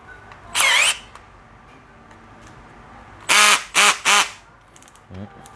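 Makita HP470 14.4 V brushless cordless hammer drill run unloaded in short trigger pulses. There is one brief burst about half a second in, then three quick bursts a little past the three-second mark. Each motor whine rises and falls in pitch.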